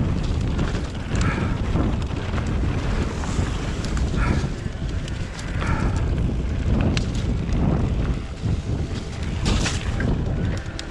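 Mountain bike descending a rough downhill trail at speed: wind buffeting the microphone, with tyre rumble and frequent sharp clatters and knocks from the bike over rocks and roots.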